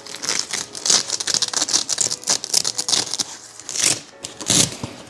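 Crinkling and rustling with small clicks and knocks as hands rummage in the bottom section of a convertible ottoman sofa bed, pulling a part out of it.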